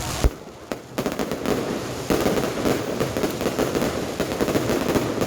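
Fireworks going off: one sharp bang about a quarter-second in, then from about two seconds a dense, continuous run of rapid pops.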